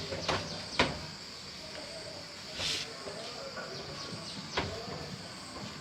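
A few sharp knocks or clicks, the loudest about a second in, over a steady high insect drone.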